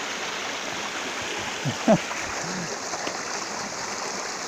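Steady rush of flowing stream water, with one brief loud burst about two seconds in.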